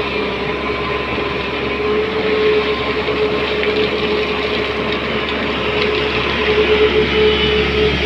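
SANY crawler excavator's diesel engine running steadily as the boom and bucket dig, with a steady whine held over the engine noise.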